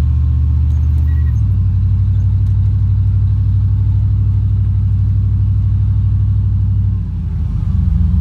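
Vehicle engine and road drone while driving, low and steady. The engine note shifts about a second in, and near the end it dips briefly before picking up again.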